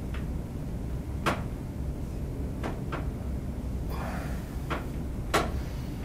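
A series of about six sharp cracks and knocks during a chiropractic back adjustment, irregularly spaced, with the loudest near the end.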